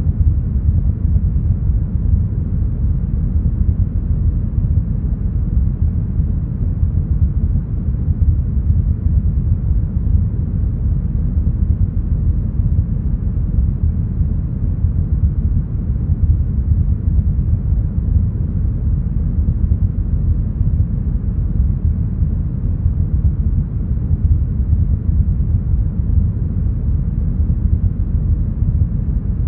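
Steady, deep brown noise: a smooth, even low rumble with almost nothing above the low-mids and no changes or events.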